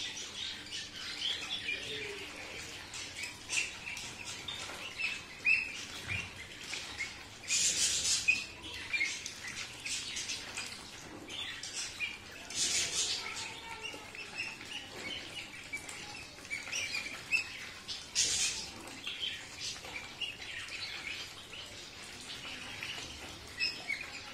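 A flock of Khaki Campbell ducklings peeping continuously as they crowd around their feed dish, with louder scuffling bursts about eight, thirteen and eighteen seconds in.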